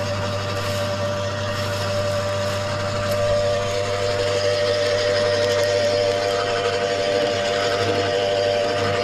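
Wood chipper running steadily: a constant mid-pitched whine over a low hum, with a rushing noise on top.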